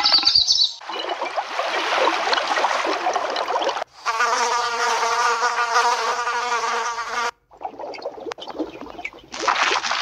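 Flies buzzing: a steady, pitched hum lasting about three seconds in the middle. Before it comes about three seconds of dense, crackling hiss, and after a short break come quieter, patchier sounds, each change an abrupt cut.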